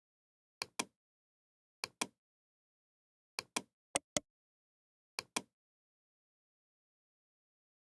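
Computer mouse double-clicking: five pairs of sharp clicks, the two clicks in each pair a fraction of a second apart, with silence between the pairs.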